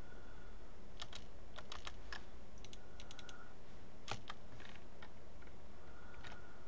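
Computer keyboard keys clicking in scattered single taps and short quick runs, with pauses between, over steady background noise.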